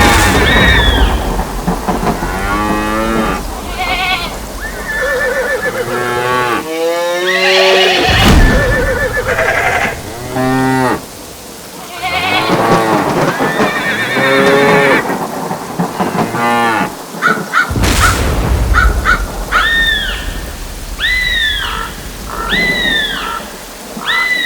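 Cattle mooing over and over against steady rain, with a crash of thunder about eight seconds in and another at about eighteen seconds. Near the end a run of short, high, arched calls repeats about once a second.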